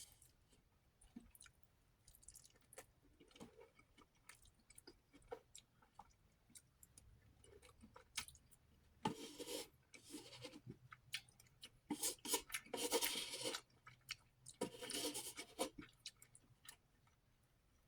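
A person chewing food close to the microphone, with soft wet mouth clicks throughout and three louder noisy spells of chewing in the second half.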